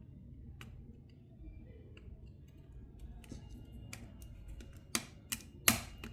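Small clicks and taps of a cell phone's plastic parts being handled and pressed into place, with a few louder, sharper clicks near the end.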